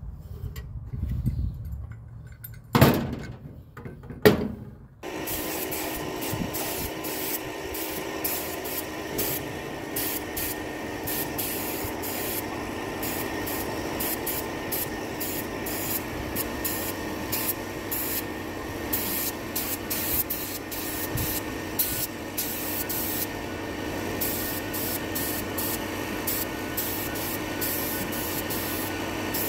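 Two sharp knocks about three and four seconds in, then an air-fed paint spray gun hissing in short, repeated bursts over a steady hum as paint is sprayed.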